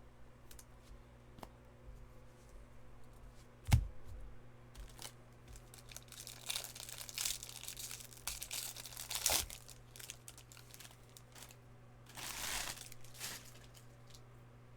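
Baseball card pack wrappers being torn and crinkled, in rustling bursts from about six to ten seconds in and again near the end. A sharp knock comes about four seconds in.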